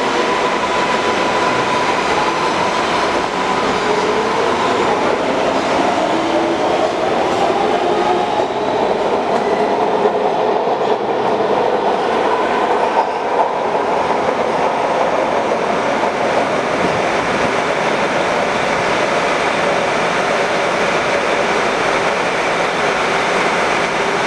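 MARTA CQ311/CQ312 rapid-transit train running along the platform: its electric motors whine, rising in pitch over the first several seconds as it gathers speed, over a steady rumble of wheels on rail.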